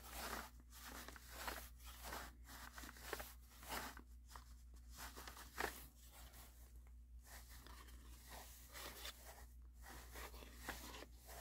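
Faint, irregular rustling and scratchy pulls as dark thread is drawn through punched holes in a stiff piece of old washi tape and paper during hand stitching, with the paper being handled between stitches.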